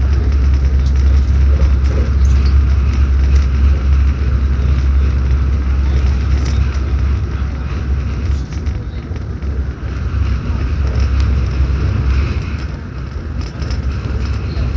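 Cabin noise of an airport express electric train running at speed, heard from inside the carriage: a steady low rumble with a rushing hiss, easing a little about halfway through.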